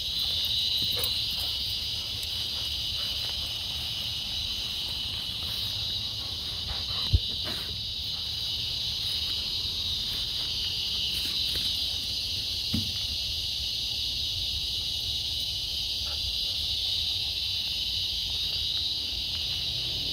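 Steady high-pitched insect chorus buzzing continuously, with a short sharp knock about seven seconds in and a fainter one near thirteen seconds.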